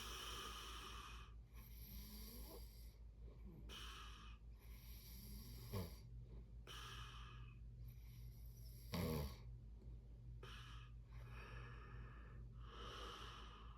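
Snoring in sleep: a string of noisy breaths with short pauses between them, and a short, louder low snort about six seconds in and again about nine seconds in. A steady low hum sits underneath.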